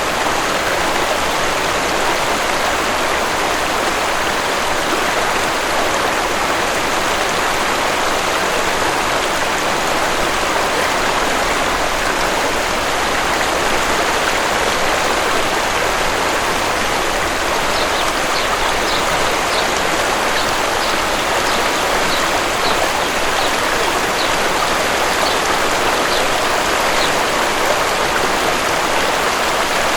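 Waterfall running steadily, an even rushing wash of falling water. About halfway through, a bird gives a run of short high chirps for several seconds.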